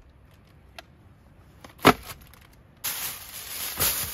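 A single sharp knock about two seconds in, as something is set down on a wooden board. Then, from about three seconds in, a plastic bag rustling as it is handled.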